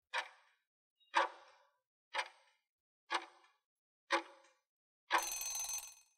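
Countdown timer sound effect: clock-like ticks, one a second, five in all, then a steadier, buzzing sound about a second long as the countdown runs out.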